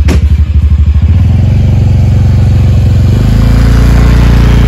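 Motorcycle engine running loud and close, with a fast even low pulse that smooths out after about a second, its note dropping deeper and steadier about three seconds in.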